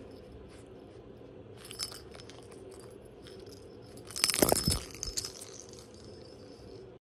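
Shih Tzu puppy chewing and gnawing a toy: scattered small clicks and crunches, with a louder cluster of clicks and a soft thump a little past the middle.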